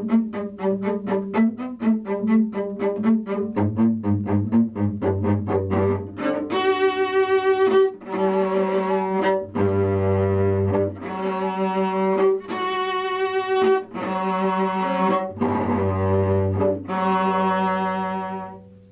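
Solo cello bowed: a run of quick separate notes, then from about six seconds in a series of long held notes with short breaks between them, closing the piece. The last note fades out near the end.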